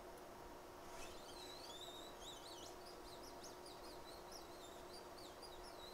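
Faint bird chirping and twittering: a run of quick, rising and falling whistled notes starting about a second in, over a steady faint hum.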